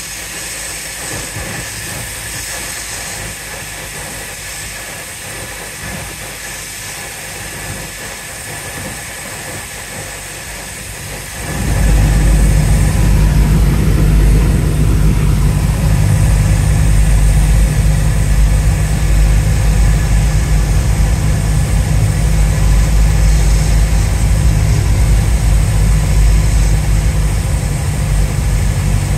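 Cessna light aircraft's piston engine and propeller running steadily, heard from inside the cabin on landing approach. About eleven seconds in the sound jumps suddenly louder, with a stronger low hum.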